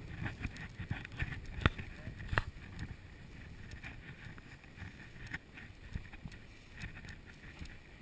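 Footsteps swishing through tall savanna grass as people walk, with wind on the microphone and a couple of sharp knocks about two seconds in.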